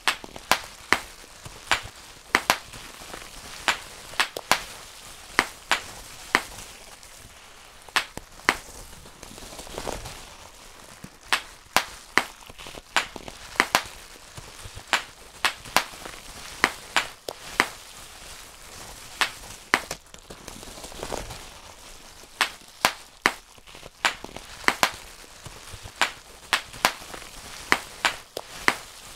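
Bubble wrap being popped one bubble at a time: sharp, irregular pops at about one or two a second, with soft rustling of the plastic sheet in between.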